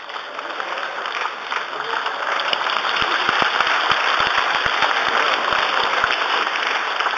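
Large audience applauding, the clapping building over the first couple of seconds and then staying loud, with a run of low thumps near the middle.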